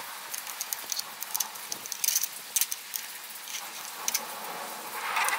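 Light clicks and taps of a small metal bracket handled against a DRO scale's metal read-head block, over a steady background hiss.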